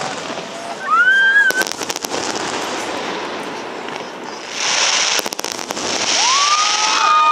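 Fireworks display: aerial shells bursting with repeated sharp bangs over a constant crackle, the crackling swelling loud for a spell in the middle.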